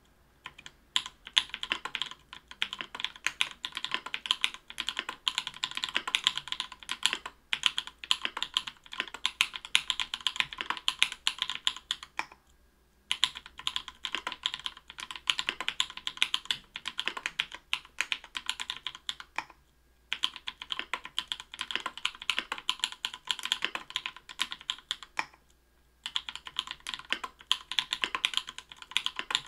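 Typing on an Octagon v3 mechanical keyboard with lubed Everglide Bamboo Leaf Green 62g tactile switches, an aluminium plate and PBT keycaps: a fast, continuous run of keystrokes, broken by short pauses about twelve, twenty and twenty-five seconds in.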